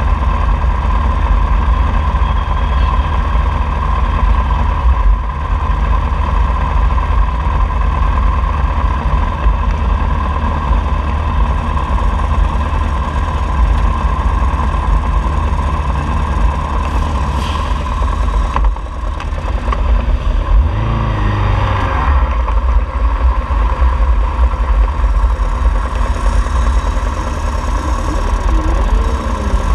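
Motorcycle engines idling steadily, led by the close, on-board inline-four of a 2003 Honda CBR600RR. Around two-thirds of the way in and again near the end, engines are blipped, with the pitch rising and falling.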